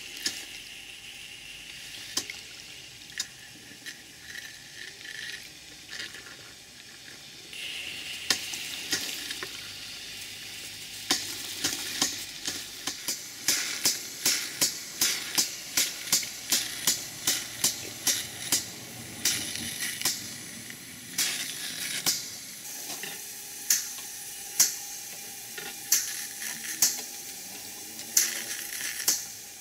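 Double-acting model steam boiler feed pump running on live steam: a steady steam hiss with the pump's clicking strokes, regular at about two a second through the middle and slower and more spaced near the end, and water splashing from the discharge hose into the tub.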